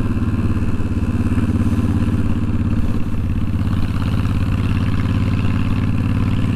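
Honda VTX1300's V-twin engine running steadily while the motorcycle is ridden, its exhaust pulses dense and even; loud, a lot louder than a Honda Rebel.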